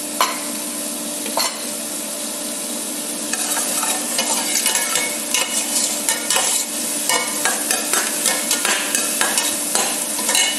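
Chopped garlic, onion and carrot sizzling in hot oil in a stainless steel pot. From a few seconds in, a metal slotted spoon stirs them, scraping and clicking against the bottom and sides of the pot.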